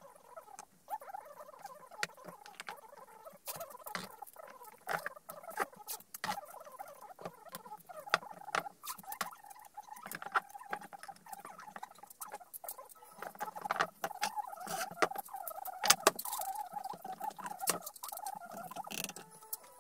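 Workbench handling noise: a rapid, continuous run of crackles, squeaks and sharp clicks from masking tape being pulled off the roll and pressed onto glued wooden boards and from bar clamps being set, busier in the second half.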